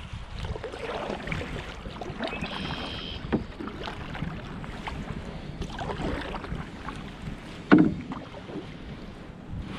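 Canoe paddling on a lake: a wooden paddle dipping and pulling through the water, splashing and dripping, with occasional knocks against the canoe, the loudest near the end. Wind rumbles on the microphone throughout.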